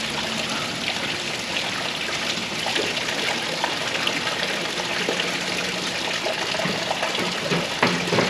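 Steady trickle of running water with faint crackles from a burning wooden feather stick, and a few knocks near the end as the burning stick goes into a tin-can stove.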